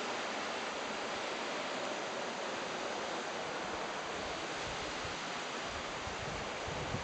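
Fast river current rushing steadily over shallows and around a bridge pier, a continuous broad hiss. From about four seconds in, gusty low rumbles of wind buffeting the microphone join it.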